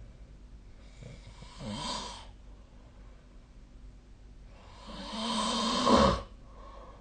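A sleeping person snoring: two snores about four seconds apart, the second longer and louder.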